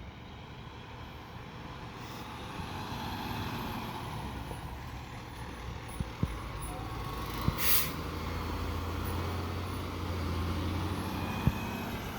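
Fire truck's diesel engine running low and steady, with a short hiss of its air brakes about seven and a half seconds in. A few sharp knocks are heard around it.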